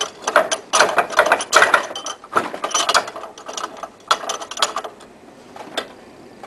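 Bench vise being worked as the metal air motor is set back and clamped in its jaws: a quick run of metal clicks and clanks, thinning out after about five seconds.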